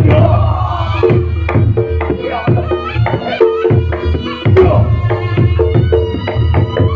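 Live Reog Ponorogo gamelan accompaniment: kendang drums beat a steady rhythm under gong and kenong strokes, with the trompet (slompret) playing a pitched melody over the top.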